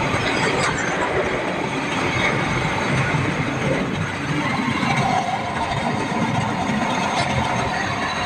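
Gas torch burning with a steady rushing noise while it heats a radiator's top tank for a solder repair, with a couple of faint clicks from work on the metal.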